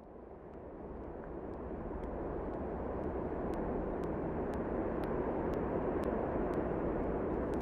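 A steady rushing noise that fades in over the first two seconds and then holds, with faint, evenly spaced ticks about twice a second.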